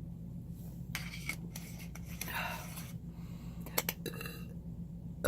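A few faint, short clicks and a soft rustle over a steady low hum, with two quick clicks close together near the end.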